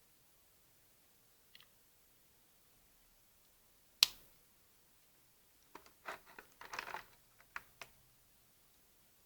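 Handling noises: a faint click, then one sharp loud click or snap about four seconds in, followed by a quick flurry of small clicks and rustles.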